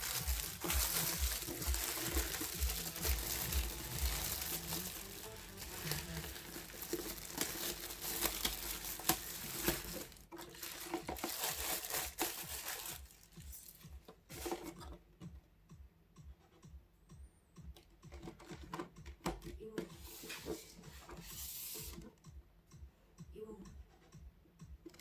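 Packaging being handled and opened: crinkling, tearing and rustling with many small clicks and taps, busy for the first half, then quieter with scattered taps.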